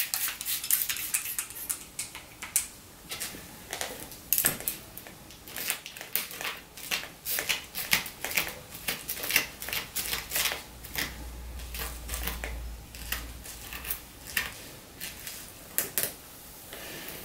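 Trigger spray bottle misting a human-hair deep wave wig, squirted in many quick hissing bursts, often a couple a second.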